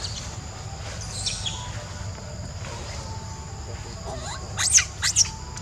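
Young macaque squealing: short, high-pitched squeaks that sweep up and down, a faint one about a second in and two louder ones close together near the end.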